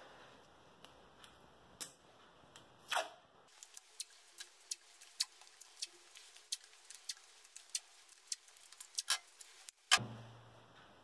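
Short, sharp clicks and taps, about three a second, from strips of blue painter's tape being handled and pressed onto the edge of a mirror, with a louder knock near the end.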